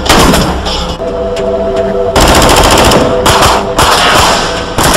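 Rapid bursts of gunfire in an action-film shootout. The shots thin out about a second in and come back heavier after about two seconds.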